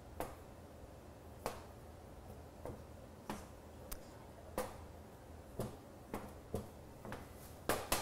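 Irregular sharp taps and clicks, about one or two a second, of a small plastic rolling pin and a sheet of gum paste being rolled, lifted and set back down on a metal worktop; the loudest taps come near the end.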